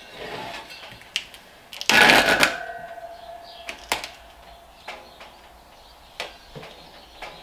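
Gorilla Tape being pulled off the roll while a dirt bike rim is taped, with one short loud rip about two seconds in, among scattered light clicks and taps.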